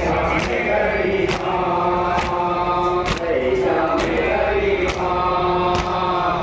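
A noha, a Shia lament, chanted by men's voices through horn loudspeakers, with a sharp rhythmic chest-beat (matam) slap about once a second keeping time.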